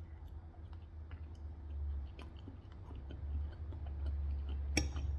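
A person chewing food with soft, scattered small clicks of the mouth, over a steady low hum.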